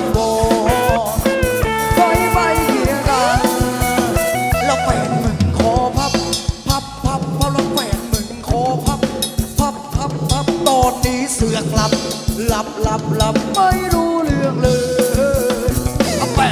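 Thai ramwong dance-band music fed through a mixing desk: a steady drum-kit beat under a bending melody line.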